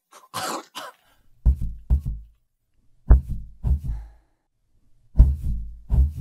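A short sharp breath, then a slow, deep heartbeat sound effect: three double beats, each pair about half a second apart, coming roughly every two seconds.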